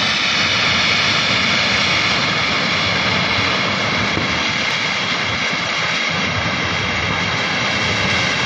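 Steady loud roar of a river in full flood, a torrent of muddy floodwater rushing past.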